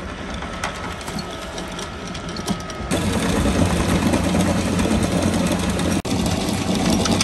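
A boat's engine running steadily, stepping up louder about three seconds in and cutting out for an instant about six seconds in.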